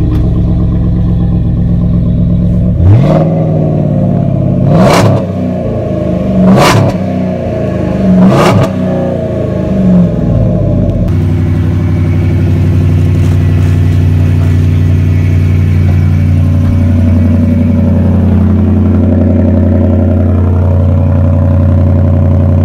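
Pickup truck engine running through a loud exhaust, revved in five quick blips between about 3 and 10 seconds in, each rising and falling in pitch, then running on steadily.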